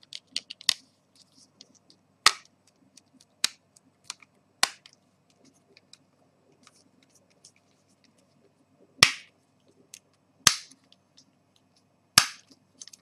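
Plastic battery cover of a Samsung Galaxy Nexus being pressed onto the phone, its clips snapping into place with scattered sharp clicks. Three louder snaps come in the second half, about a second and a half apart, as the cover seats flush.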